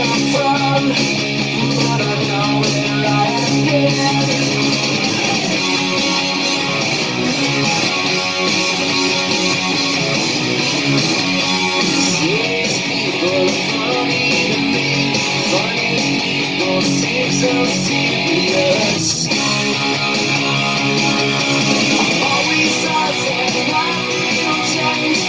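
Electric guitar, an EVH Standard, played steadily in a rock song, with sliding, bending notes through the middle stretch. It breaks off for a moment about three-quarters of the way through.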